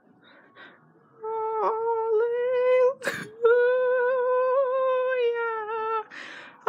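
A person humming long, steady notes at one pitch, starting about a second in. The humming breaks twice: once for a short sharp noise about three seconds in, and again for a brief breathy hiss near the end.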